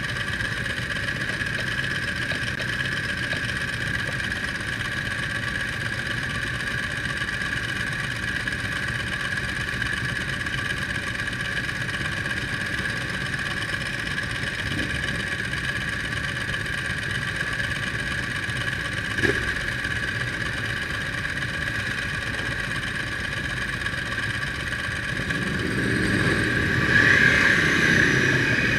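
Ducati sportbike engines idling steadily at a standstill. Near the end they grow louder as the bikes rev and pull away.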